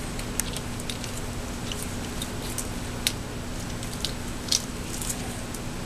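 Scattered light clicks and taps of small metal clutch parts being handled and fitted, about eight in all, over a steady low background hum.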